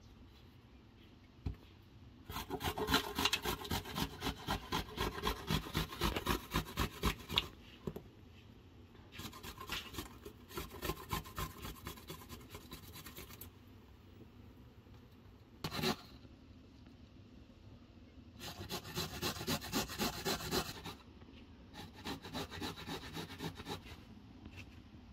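Food being grated on a stainless steel box grater standing on a wooden cutting board: quick, even rasping strokes in four bursts of a few seconds each, with short pauses between them.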